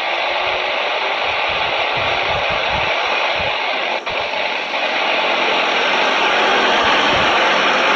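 Twin jet engines of an Airbus A330 airliner running at low thrust as it turns onto the runway to line up: a steady rushing hiss with a brief dropout about four seconds in, growing louder over the last few seconds as the engines swing round to face the listener.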